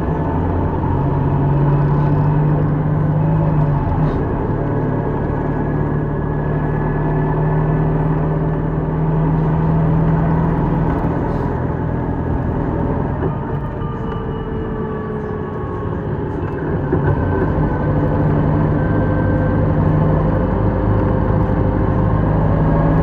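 City bus heard from inside while driving: a steady low engine hum over road noise. The engine note fades and the sound drops a little past the middle, then picks up again.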